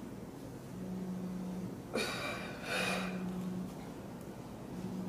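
A woman's hard, forceful breaths through the mouth as she works through crunches: two sharp exhalations about two seconds in, close together. A low hum comes and goes about every two seconds underneath.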